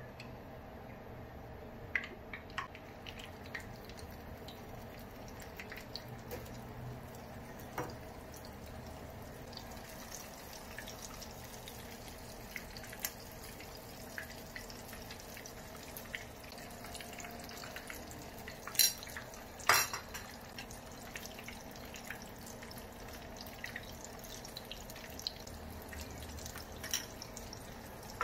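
Egg-coated eggplant frying in hot oil in a pan: a steady sizzle with scattered small crackles, and two louder sharp clicks about two-thirds of the way through.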